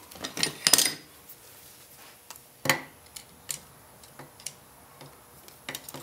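Light metal clicks and clinks of a snap ring and snap-ring pliers being fitted to the shaft of an SM465 transmission: a short clatter about half a second in, one sharp click near the middle, then scattered small ticks.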